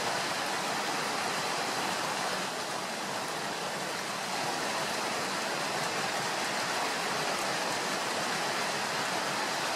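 Waterfall cascading down a sloping rock face: a steady, even rush of falling water.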